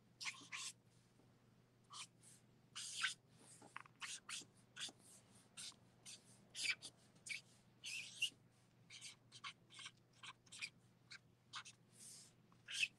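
Marker tip drawing short strokes on paper: a run of quick, faint scratching sounds, about two a second, at an uneven pace.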